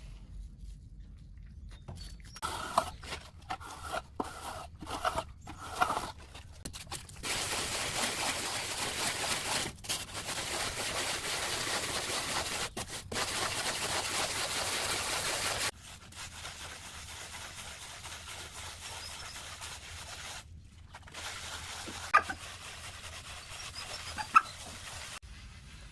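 A puppy whimpering in a run of short high cries. These are followed by about eight seconds of steady scrubbing as a damp sponge is rubbed over fresh cement render, then two sharp clicks near the end.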